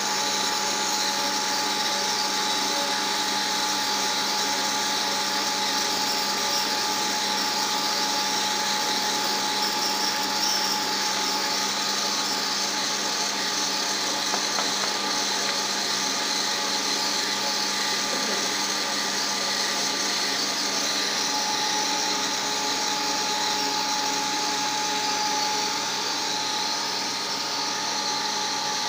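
Paper slitting-rewinding machine for release paper running at a steady speed: a constant mechanical hum with a steady whine through it.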